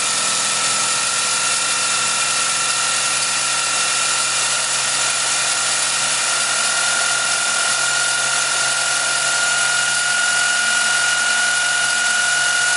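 Toyota Camry 2.2-litre four-cylinder engine idling steadily with the oil filler cap off, with a high whine that rises slightly in pitch. Little or no air is pushed out of the open filler, a sign of low blow-by and healthy piston rings.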